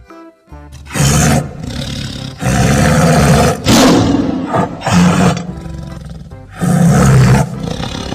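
Tiger roars, about five loud ones in a row, over background music.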